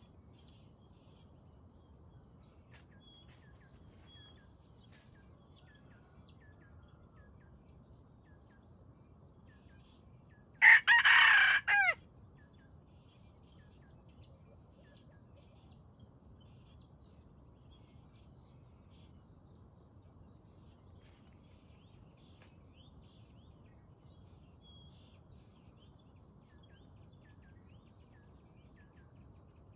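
A red junglefowl rooster crows once, a short, loud crow lasting just over a second, near the middle. Faint insect trills and small bird chirps sound in the background.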